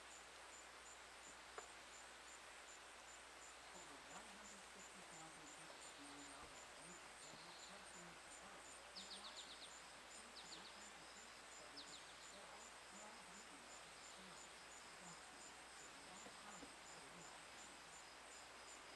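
Near-silent outdoor ambience: an insect chirping in a steady, rapid, high-pitched pulse, with a few short bird chirps about nine to twelve seconds in.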